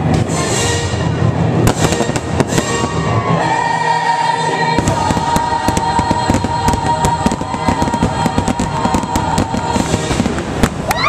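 Fireworks going off in a fast string of bangs and crackles, thickest in the second half, over show music that holds one long sustained note.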